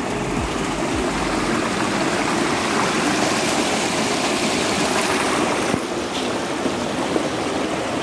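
Shallow hillside stream running over rocks and stones: a steady rush of water.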